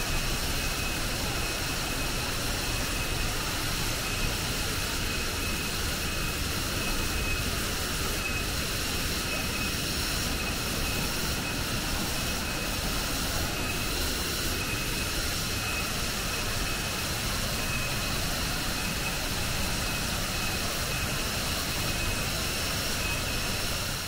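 Banyumala twin waterfall pouring into its plunge pool: a steady, unbroken rush of falling water.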